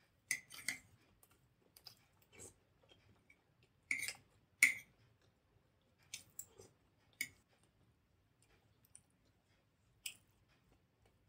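Metal spoon clinking and scraping against a ceramic bowl while scooping sambar, in irregular sharp clinks, the loudest around four to five seconds in, with soft eating sounds between.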